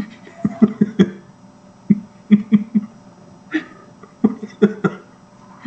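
Short, scattered bursts of a man's voice, separated by brief pauses.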